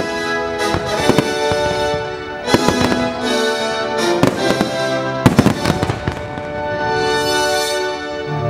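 Aerial fireworks bursting in rapid volleys of sharp bangs and crackles, over a loud soundtrack of music with sustained notes. The heaviest volleys come about two and a half seconds in and again just after five seconds.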